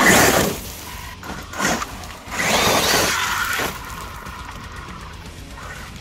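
Large-scale Losi Super Baja Rey 2.0 RC truck on 8S power accelerating hard over loose gravel: its electric motor whines while stones crunch and scatter under the tyres. The loudest burst comes right at the start, a short one follows about a second and a half in, and a longer one comes around two and a half seconds in.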